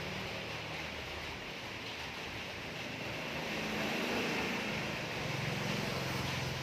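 Low engine hum of a motor vehicle running over steady background noise, the hum shifting in pitch and growing stronger about five seconds in.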